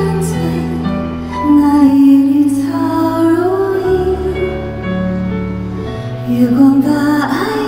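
Slow, gentle live band music for a ballad: long held bass notes that change every second or two under a smoothly gliding melody line.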